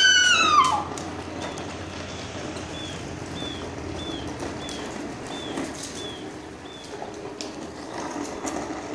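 A child's high voice calls out once at the start, falling in pitch. Then a child's tricycle is pedalled over gritty concrete, with a small high squeak repeating about twice a second over a low rolling rumble.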